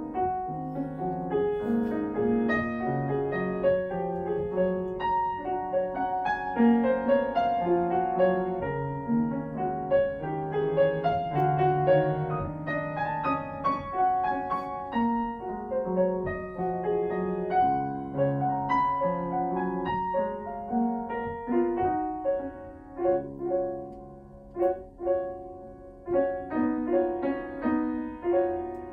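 Grand piano played solo: a classical piece with many overlapping notes and chords, softening for a few seconds near the end before growing louder again.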